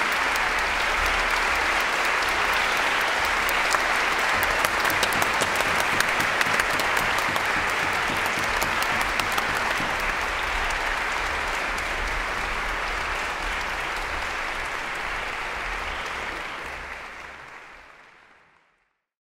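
Large audience applauding steadily, then fading out near the end.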